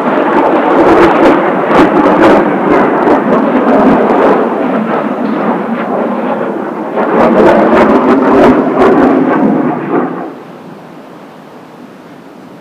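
Kawasaki T-4 jet trainers flying past: a loud, crackling jet roar that swells twice, then drops off sharply about ten seconds in to a quieter steady hiss.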